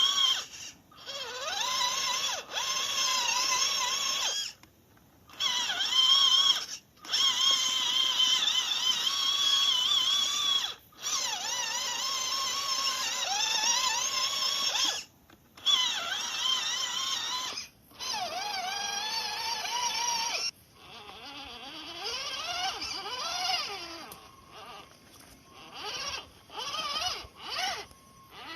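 Electric motor and gears of an MN99s 1/12-scale RC crawler whining, the pitch rising and falling with the throttle and cutting off suddenly several times when the throttle is let go. It comes in shorter, quieter spurts over the last third.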